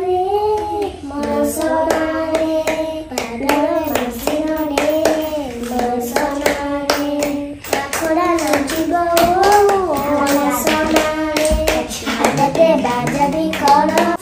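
Two young girls singing a song together, holding notes, with steady hand claps keeping time.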